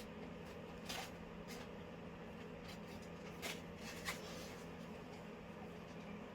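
Light handling of leather bridle straps and buckles: a few soft clicks and rubbing over a steady low hum.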